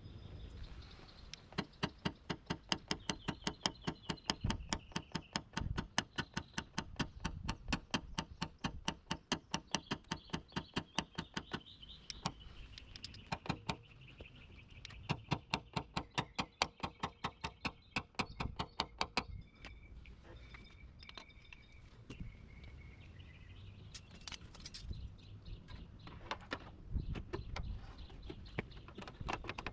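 Rapid light tapping on a car body panel, about four taps a second, as a paintless dent repair tool knocks down the metal; it pauses briefly, resumes, then thins out to a few scattered taps for the last ten seconds.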